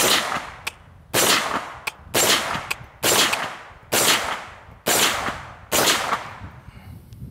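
Seven shots from a CMMG Mk-W Anvil AR-15 in .458 SOCOM, fitted with a muzzle brake, fired semi-automatically at about one a second. Each is a sharp, loud crack that dies away within half a second.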